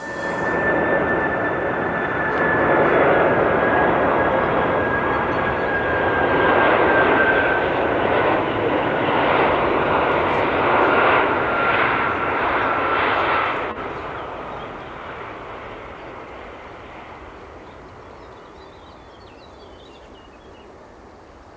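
Boeing 747-400 freighter's jet engines passing close on landing approach: loud jet noise with a high whine that slowly falls in pitch. About 14 s in the noise drops sharply to a quieter rumble that fades away.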